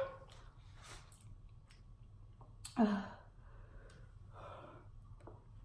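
A woman's short voiced exclamation about three seconds in, a reaction to the heat of spicy chicken wings, followed by a breathy exhale; a few faint clicks of a fork and mouth sounds in between.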